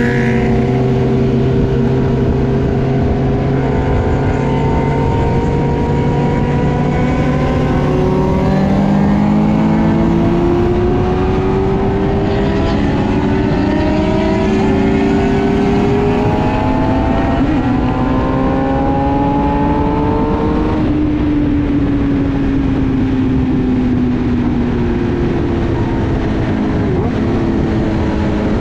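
Car engine under a long acceleration, its pitch climbing slowly for about seventeen seconds and then dropping as the throttle comes off, over a steady low rumble of road and wind noise.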